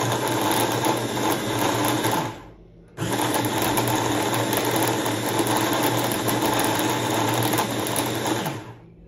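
Philips Walita Mix 400 W hand blender running its chopper attachment to chop onion, in two long bursts. The motor runs, stops and winds down a little over two seconds in, starts again at about three seconds, and winds down near the end.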